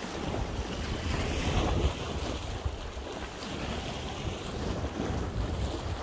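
Wind rumbling on the microphone over the wash of sea waves on the shore, swelling a little just under two seconds in.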